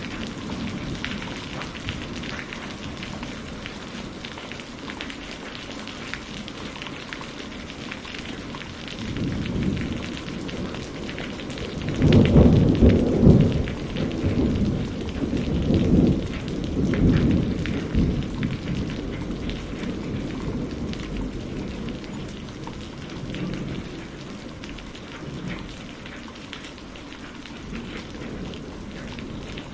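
Steady rain falling, with a thunderclap about twelve seconds in that rolls and rumbles in several surges before fading away.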